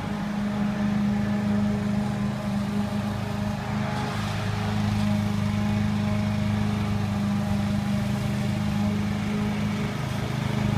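Briggs & Stratton 850 I/C single-cylinder four-stroke engine on a Greenfield push lawn mower running steadily at a constant pitch while cutting grass.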